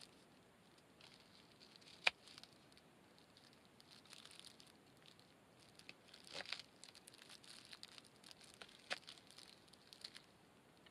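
Kitchen knife cutting a Japanese long onion (negi) on a small wooden cutting board: a few sharp, faint clicks as the blade goes through and meets the board, with soft crinkling of a plastic bag.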